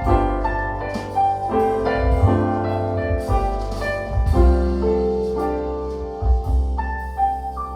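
Recorded ballad music played back over Altec Lansing Valencia 846B loudspeakers with subwoofers: a piano-led passage of sustained chords over a strong deep bass line, with no singing.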